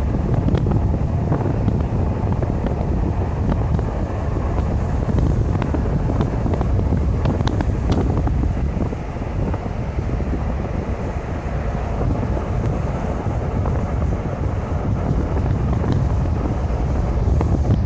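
Wind buffeting the microphone: a loud, steady low rumble with a few faint clicks.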